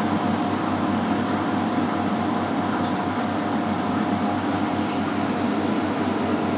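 Steady mechanical hum and hiss, with a faint constant high whine running through it.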